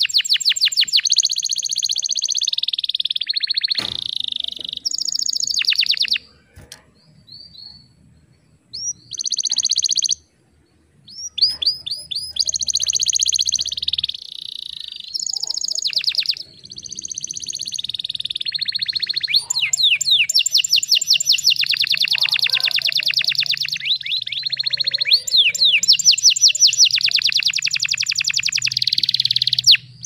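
Domestic canary singing long rolling trills of rapid, evenly repeated high notes, broken by two short pauses about six and ten seconds in.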